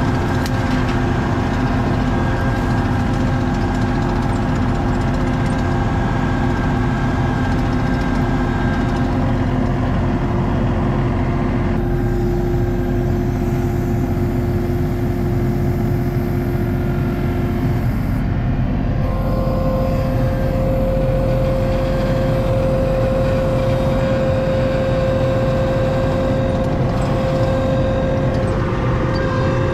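ASV RT-40 compact track loader running under load, heard from inside its cab: a steady engine drone with a hydraulic whine whose pitch shifts about twelve seconds in and again near nineteen seconds.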